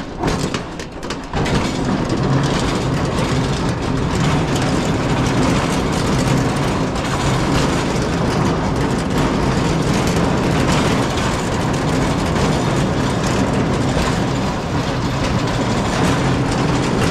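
A loud, steady mechanical rumble like a running vehicle, starting suddenly about a second in and holding steady.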